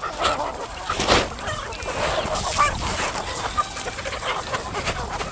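Farmyard poultry flock calling, many overlapping clucks and honks, with one louder sharp sound about a second in.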